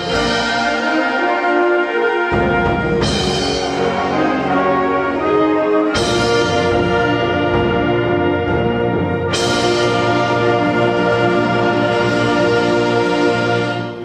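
High school symphonic band of brass and woodwinds playing loud, held chords that change about every three to four seconds, with deep low notes joining after about two seconds. The band cuts off together on the closing chord of the piece.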